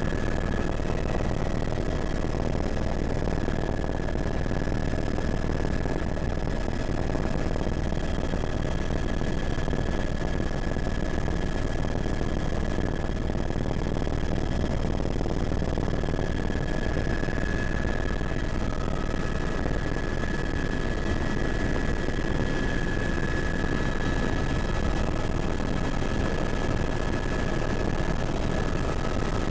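Helicopter engine and rotor running steadily: a constant low rumble with a thin high turbine whine over it.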